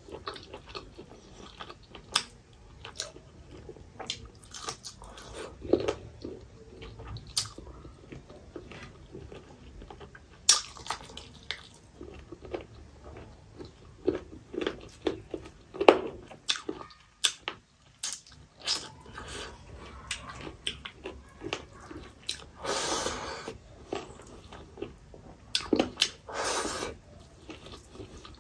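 Close-miked eating by hand: chewing and mouth noises from rice with chicken curry and fried bitter gourd, heard as many irregular wet clicks and smacks. Two longer, louder stretches of eating noise come about 23 and 26 seconds in.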